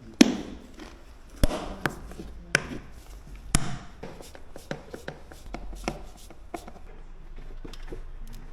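Irregular sharp knocks and clicks of hard objects being handled, a few loud ones in the first four seconds and lighter taps after.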